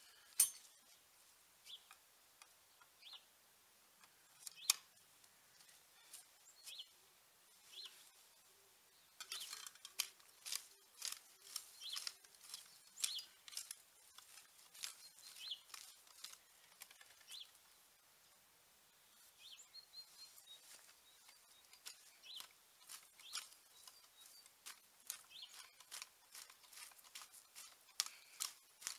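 Long-handled garden tool digging and scraping into soil and dry plant stems: faint, irregular scratchy strokes, sparse at first and coming thick and fast from about a third of the way in.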